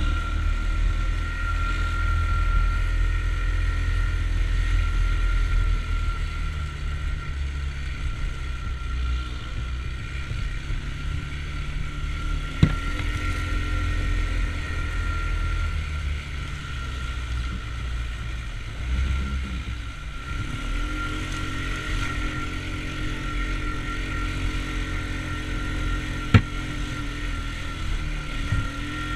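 Off-road vehicle engine running on a dirt trail ride, its note rising and falling with the throttle. Two sharp knocks, one about halfway through and one near the end.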